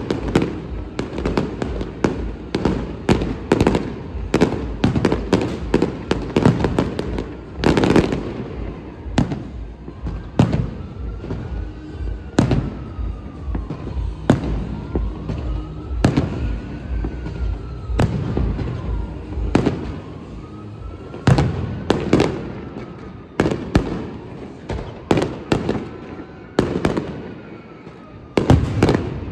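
New Year's fireworks and firecrackers going off, a rapid barrage of sharp bangs that thins out to more scattered blasts after about eight seconds. From about ten seconds in, a faint tone rises and falls slowly and repeatedly behind the bangs.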